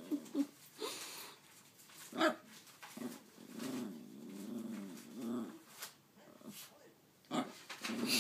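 Small dog "talking": a few short yips, a sharp bark about two seconds in, then a long grumbling moan that rises and falls in pitch for a couple of seconds, with more short vocal sounds near the end.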